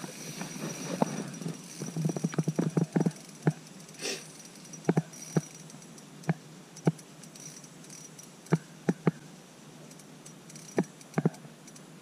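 A freshly caught crappie flopping on the ice, making short, sharp taps: a quick cluster about two to three seconds in, then single taps every second or so.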